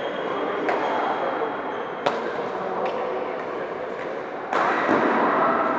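Badminton shuttlecock struck back and forth with rackets in a rally: several sharp hits, the loudest about two seconds in, echoing in a large sports hall over a constant background of other players. From about three-quarters of the way in a louder stretch of noise rises over the hall sound.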